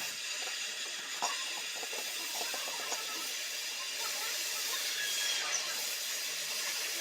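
Electric welding arc burning steadily: a continuous crackling hiss with small pops scattered through it.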